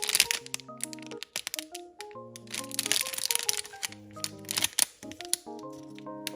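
Background music, a simple melody of held notes, with bursts of crackling and crinkling from plastic packaging being handled.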